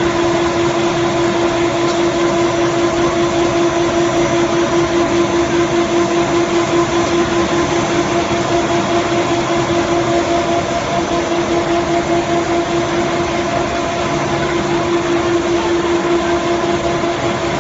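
Twin-screw extruder for fried snack pellets running: its electric motor and gearbox give a loud, steady machine hum with one strong held tone over a constant noisy rush.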